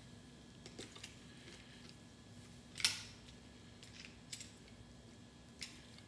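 Faint clicks and small handling noises from a trigger-style marinade injector being worked into a raw chicken thigh, with one louder brief rustle about three seconds in.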